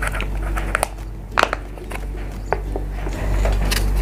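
Plastic spouted drink pouches being handled: a few sharp clicks and light crinkles as one pouch is set down and another is picked up.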